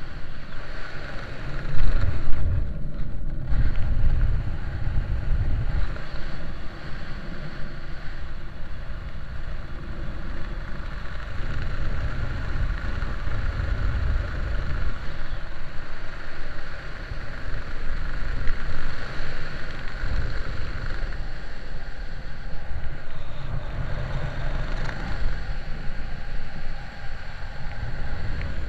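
Wind buffeting a camera microphone during a parachute descent under an open canopy: a low, gusty rumble that swells and fades over a steady rush of air.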